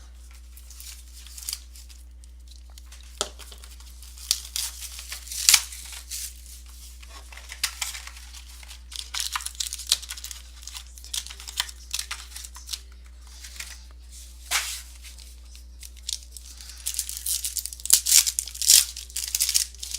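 Plastic wrapping on a box of trading cards being torn open and crinkled by hand, in irregular bursts of rustling, loudest near the middle and near the end.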